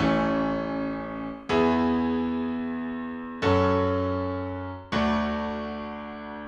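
Background music: slow keyboard chords in an electric-piano sound, four chords struck about one and a half seconds apart, each left to ring and fade.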